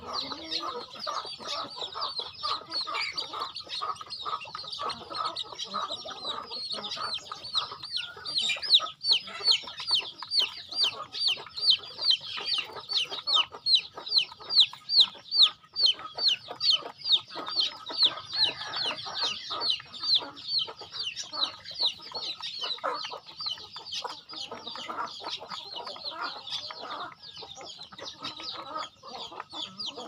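A chick peeping continuously in short, high, falling peeps, about three a second, loudest around the middle, with hens clucking softly underneath.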